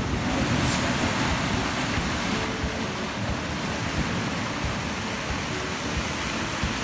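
Sea surf surging and breaking over rocks and washing through rock pools: a steady rushing of water.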